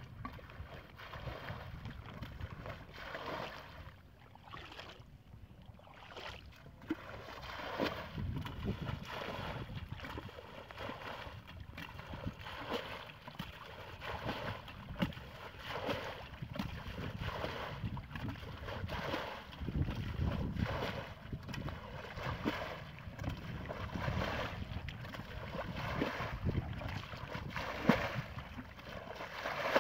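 Muddy ditch water being scooped and thrown out with a plastic bucket, splashing and sloshing again and again, about every second or two, with a quieter spell about four to six seconds in. This is bailing out a stretch of ditch to get at the fish.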